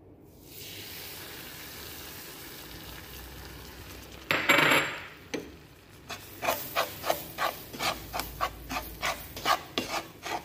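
Melted butter poured into a pan of toasted flour mixture, with a steady low sizzle. From about six seconds in, a wooden spatula stirs and scrapes the dry, crumbly mixture against the metal pan in quick strokes, about three a second.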